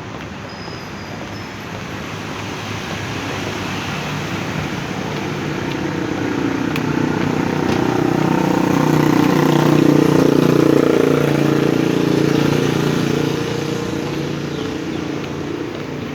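A motor vehicle passing by on a road. Its engine grows louder to a peak about ten seconds in, then fades away, over steady traffic noise.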